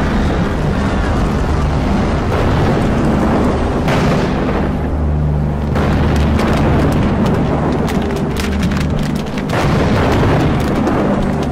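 Soundtrack of an augmented-reality wine-label animation: dramatic music with sustained low notes under rumbling, booming effects, and a run of sharp cracks in the last few seconds.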